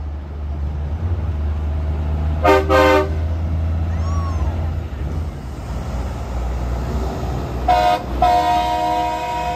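Semi trucks' diesel engines rumbling past while air horns sound: two short blasts about two and a half seconds in, then a short blast and a longer held blast near the end.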